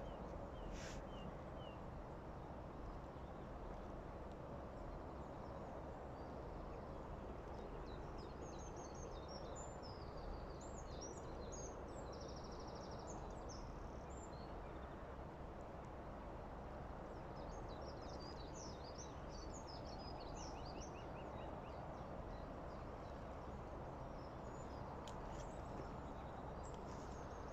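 Steady outdoor background noise with small birds singing in short bursts of high chirps, twice during the stretch, one burst including a quick trill.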